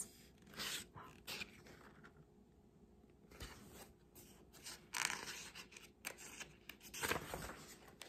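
Faint rustling and scraping of a picture book's paper pages being handled and turned, a few short rustles with quiet room tone between.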